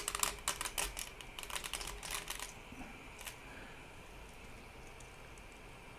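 Quick run of light plastic clicks and snaps as a 3D-printed articulated octopus is worked loose from the printer bed, its jointed tentacle segments clicking against each other. The clicks bunch up in the first two and a half seconds, with one more a little after three seconds in.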